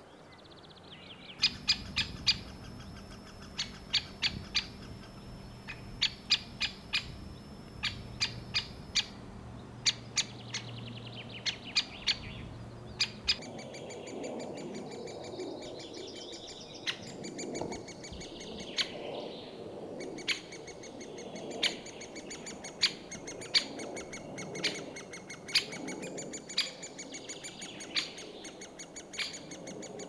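Great spotted woodpecker giving its sharp, single 'kik' warning call over and over at uneven intervals, sometimes several in quick succession.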